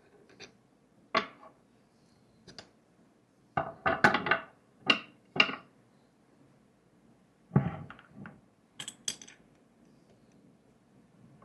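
Coffee gear being handled on a counter: a series of separate clinks and knocks of metal and glass, bunched in quick runs in the first half and again near the middle.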